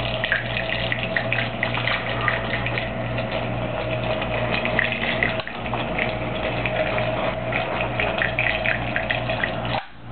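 Homemade tornado machine running: a small electric motor spins water in a tall cylinder, a steady motor hum and whine under the crackling, gurgling churn of the swirling water and air bubbles. Near the end the churning and whine cut off abruptly.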